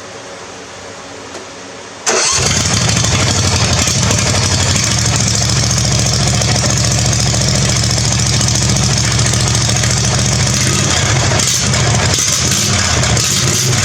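Briggs & Stratton V-twin engine on a zero-turn mower with a loud custom open exhaust (two header pipes joined into one) comes on suddenly about two seconds in and runs steadily and loud. The exhaust is only set in place, not yet welded.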